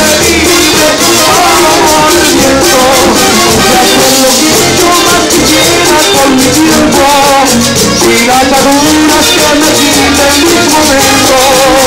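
Live brass and wind band playing an upbeat number: saxophones, French horns and sousaphones over drums, with a fast, steady rattling percussion part.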